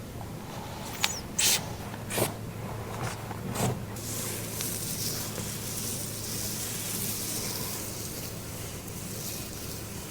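A few short scratchy rustles and clicks, then from about four seconds in a steady high hiss of water spraying, as in a salon hair rinse.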